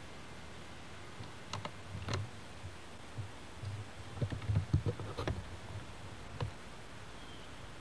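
Camcorder handling noise as it is carried around: a few scattered light clicks and soft low thumps, busiest about four to five seconds in, over a steady tape hiss.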